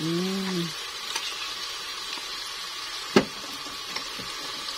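Water spinach and liquid seasoning sizzling as they are stir-fried in a hot wok, with a single sharp knock about three seconds in.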